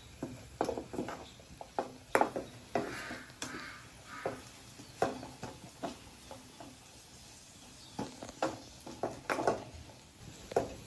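Plastic slotted spoon scraping and knocking against a non-stick frying pan in irregular short strokes as scrambled eggs with vegetables and cuchunuc flowers are stirred.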